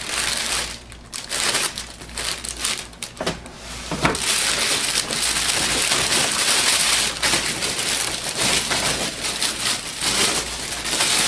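Clear plastic wrapping bag around a printer crinkling and rustling as hands pull and smooth it open. For the first few seconds the rustles come in short, separate bursts as a cardboard insert is lifted off; from about four seconds in the crinkling is continuous.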